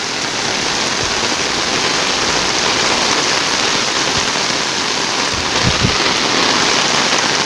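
Heavy tropical rain pouring down, a dense steady hiss of rain hitting water and surfaces, with a couple of faint low thuds a little past the middle.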